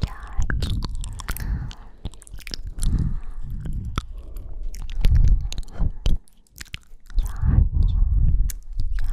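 Close-miked mouth sounds: wet lip clicks and kissing smacks mixed with breaths blown onto the microphone, which come as heavy low puffs every second or two.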